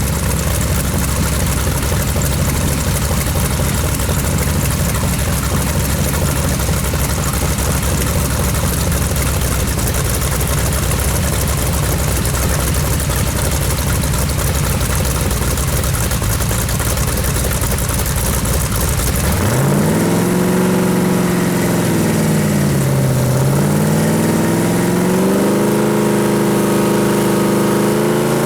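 A 383 V8 engine on a run stand idling steadily, then about two-thirds of the way through its speed rises, dips and climbs again.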